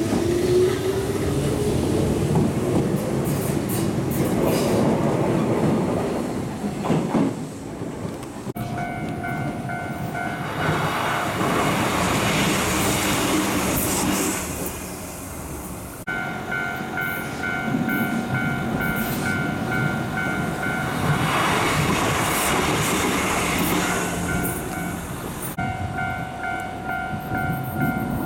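Shizuoka Railway electric commuter trains running on the line, with wheel-on-rail clatter and motor noise as a train pulls out of the station. After a cut, level-crossing warning bells ring in a steady repeating two-tone pattern while trains rumble past the crossing, the running noise swelling as each one goes by.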